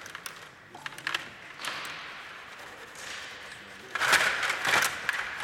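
Stiga table hockey game in play: sharp clicks and knocks of the metal control rods and the puck against the plastic players and boards, with a louder, dense burst of noise about four seconds in.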